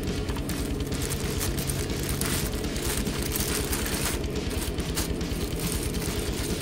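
Clear plastic packaging crinkling in short bursts as mini 4WD kit parts are handled, over steady background music.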